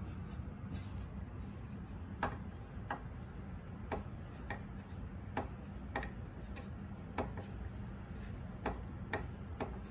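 Hitachi air-conditioner indoor unit giving a string of short, sharp clicks at irregular intervals, about a dozen over several seconds, over a steady low hum. These are the popping noises put down to the unit's parts expanding and contracting with temperature.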